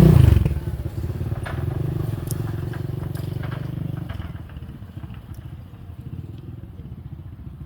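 An engine running with a steady low pulsing hum that drops away after about four seconds, with a few faint clicks.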